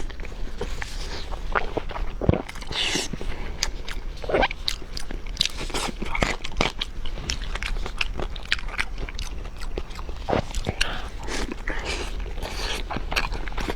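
Close-miked eating sounds: a person biting and chewing food, with many short, irregular crunching clicks.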